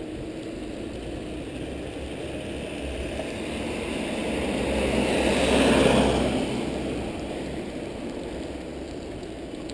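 Steady rush of wind and bicycle tyres on wet asphalt, with a vehicle passing on the wet road: its tyre hiss swells to a peak about six seconds in and fades away.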